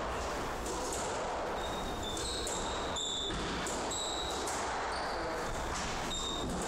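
Squash rally: the ball smacking repeatedly off rackets, walls and floor, with several short squeaks of court shoes on the wooden floor.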